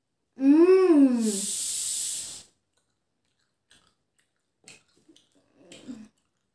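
A woman's closed-mouth "mmm" while chewing a fried chicken drumstick, rising then falling in pitch, followed by a hissing breath of about a second and a few faint chewing sounds.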